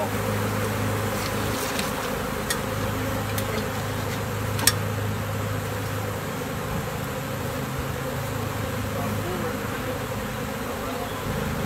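A swarm of honeybees buzzing in a steady, dense drone close around the microphone: a disturbed swarm that has fallen on a person and is stinging. A couple of sharp clicks cut in about two and a half and four and a half seconds in.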